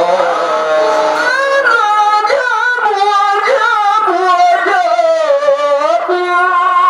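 A solo voice singing a qaswida, Swahili Islamic devotional song, in long held phrases that bend up and down in pitch, set fairly high.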